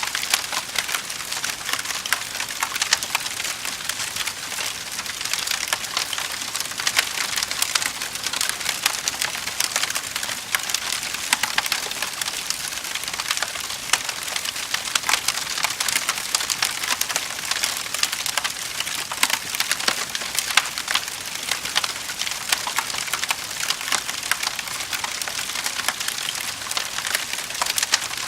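Wood fire burning in a fireplace, crackling and popping steadily with many small sharp snaps.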